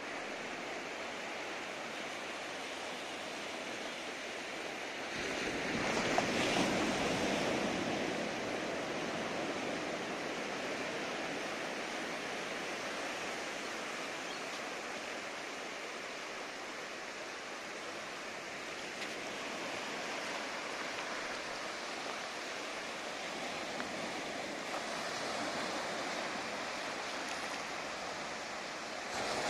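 Small ocean waves breaking and washing up a sandy beach in a steady surf wash, swelling louder about five seconds in and then settling back.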